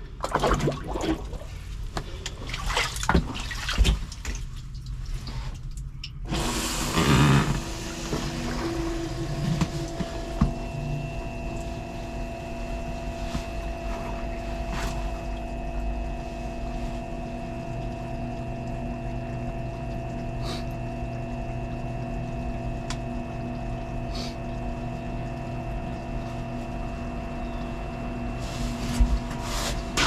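Submersible sump pump pumping out standing flood water: knocks and splashes as it is set down in the water, then from about six seconds in a steady motor hum with the rush of water being drawn through it.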